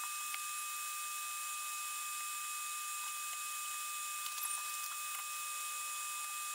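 Fan of a solder-smoke extractor running steadily, a hiss with a thin, even whine. A few faint light clicks of wire and parts being handled.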